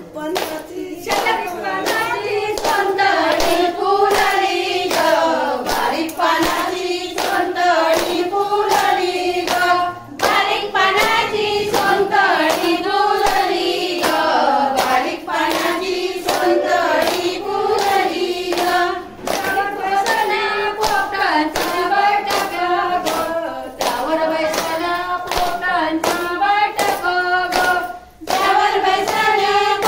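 A group of women singing a fugdi folk song together, with steady rhythmic hand clapping keeping time, about two or three claps a second. The singing and clapping pause briefly a few times between lines.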